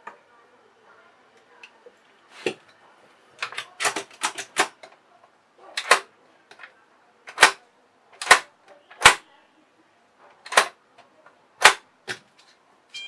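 Irregular sharp clicks and knocks from door lock hardware being handled and fitted, with a quick run of five or six about four seconds in and single louder knocks spaced a second or so apart after that.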